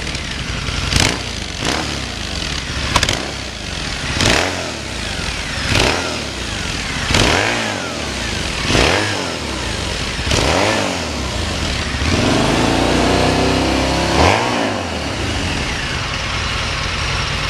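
2012 Harley-Davidson V-Rod Muscle's liquid-cooled Revolution V-twin revved on its mostly stock exhaust, which has a few holes punched in the muffler ends. It is blipped up and back down roughly every second and a half, then held at a steady higher speed for the last few seconds with one more blip.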